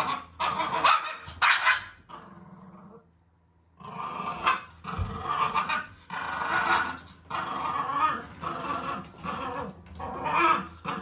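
Shih Tzu puppy growling and barking in repeated bursts, with a short quiet break about two seconds in. It is the sound of a frightened dog resisting being handled during a bath.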